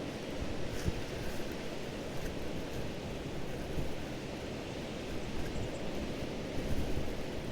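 Steady, fluctuating low rumbling noise like wind on a headset microphone, which the uploader puts down to her headphones.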